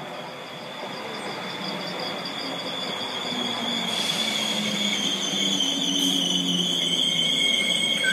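Electric multiple unit passing close alongside a station platform: rumble of the coaches with a steady high-pitched squeal from the train, growing louder as it draws level.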